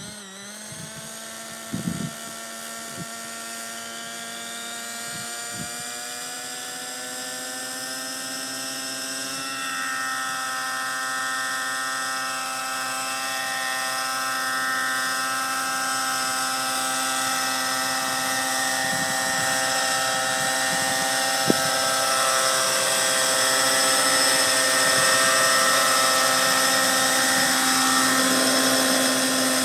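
Radio-controlled model helicopter's engine and rotors running at a steady pitch, the note stepping up slightly about ten seconds in and growing steadily louder as the helicopter comes close and sets down. A few short clicks sound early on and once more past the middle.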